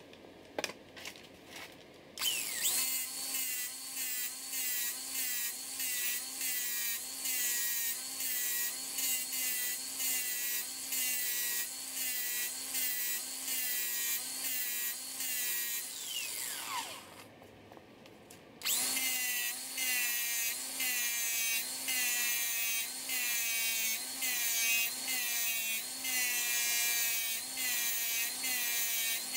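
Angle grinder grinding steel bolt ends down flush with an aluminium bell housing's mating surface, its whine dipping in pitch in an even rhythm as it bites under load. It starts about two seconds in, winds down near the middle, pauses briefly, then starts grinding again.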